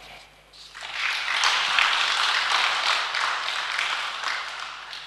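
Audience applauding: many hands clapping together, starting just under a second in and dying away near the end.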